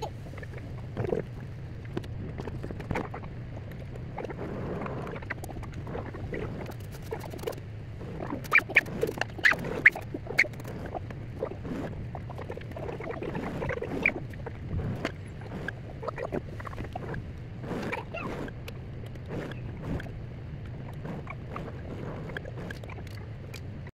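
Old cabinet sewing machine stitching cloth: irregular clicks and short squeaks from the mechanism and the fabric being fed, with a cluster of louder clicks around the middle, over a steady low hum.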